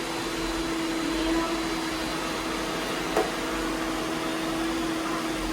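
Several robot vacuum cleaners running together: a steady whirring with a constant hum. There is a single short knock about three seconds in.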